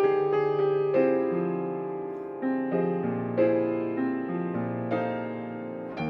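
Solo piano playing a song accompaniment with no singer: notes struck every half second or so and left to ring over held bass notes.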